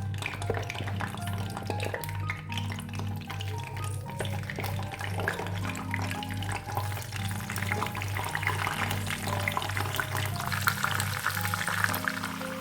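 Background music with a steady beat, over kitchen noises: scattered clicks and clinks and a hissing wash that grows louder in the second half, like food frying or water running.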